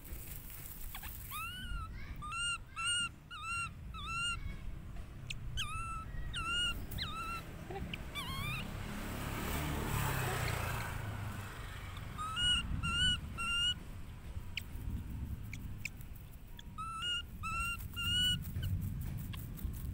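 Baby macaque giving short, high-pitched squeaky calls, each rising then falling, in quick runs of three to eight with pauses between. A brief rustling hiss comes about halfway through.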